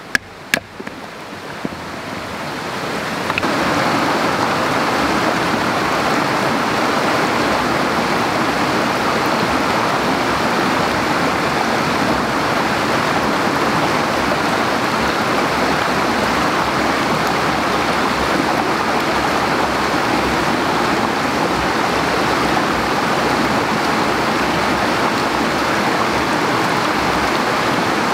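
Steady rushing of a stream, fading in over the first few seconds and then holding even. Right at the start, a couple of sharp knocks of a hatchet being tapped through a stick of kindling.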